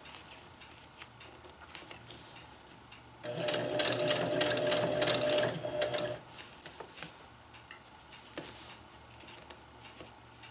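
Electric sewing machine running for about three seconds, starting a few seconds in, stitching a seam in thin ripstop nylon. Before and after it, faint rustling and small clicks of the nylon being handled.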